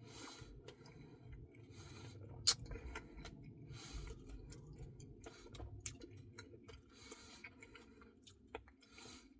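Faint close-up chewing and mouth sounds of someone eating a Reese's Pieces cookie dough Blizzard, in soft bursts about once a second with small clicks. A single sharp click comes about two and a half seconds in.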